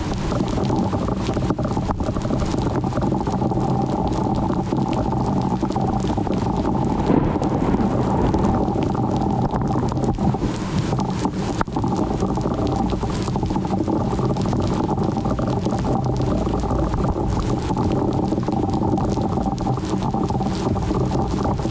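Thunderstorm wind buffeting the microphone, with rain, making a steady, dense rumble.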